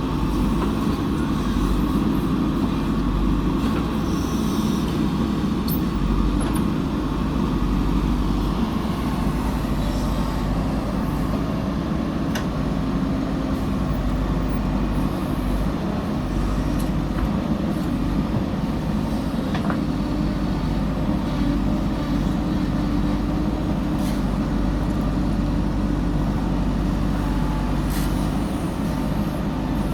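Backhoe loader's diesel engine running steadily as it digs and loads soil, with a few short metallic knocks from the working machine.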